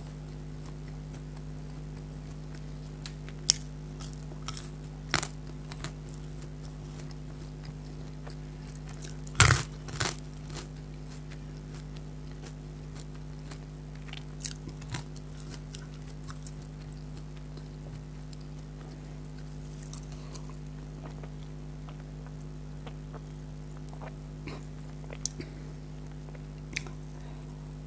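A person eating close to the microphone: scattered chewing and biting mouth sounds with occasional crunches, and a louder cluster about nine to ten seconds in, over a steady low hum.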